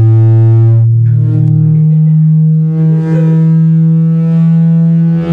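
Music playing loud through a Sony SRS-XV900 party speaker: long held bass notes, the deepest note dropping out about two seconds in and a higher bass note holding on.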